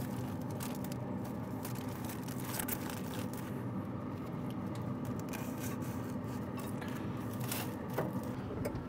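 Foil-wrapped brisket being set down and shifted on a pellet grill's metal grate: scattered crinkles of aluminium foil and scrapes, over a steady low hum.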